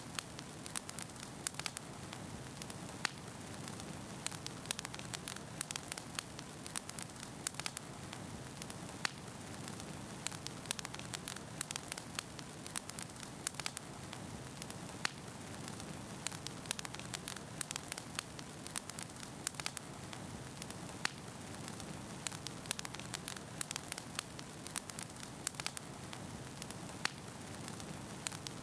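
Fire crackling: frequent sharp pops and snaps, several a second, over a steady low hiss.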